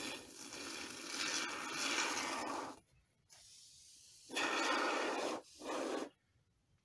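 Can of expanding spray foam hissing as it is dispensed: one long spurt that stops just under three seconds in, then two short spurts close together.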